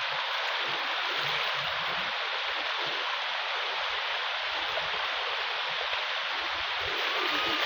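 Shallow water rushing steadily down a smooth, sloping rock face: a continuous even splashing hiss that holds the same level throughout.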